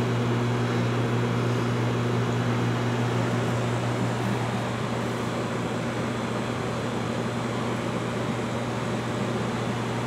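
Pool heat pump running with the pool's filter pump: a steady hum with a low, even drone under the fan's airy noise.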